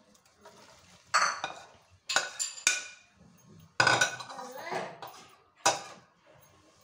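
A steel spoon clinks and scrapes against a plastic bowl and the rim of a steel pot while chopped fruit is scraped out into the pot. About half a dozen sharp clinks, some ringing briefly.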